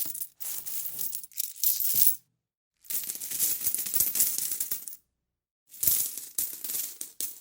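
Coins clinking and jingling together in a dense metallic clatter. It comes as several separate takes, each cut off sharply by a short gap of silence, the longest run lasting about two seconds.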